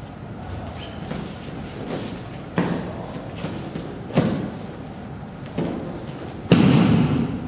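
A few dull thuds of bare feet and bodies on padded gym mats during a martial-arts throw. The loudest, longest thump comes near the end, as a body lands on the mat.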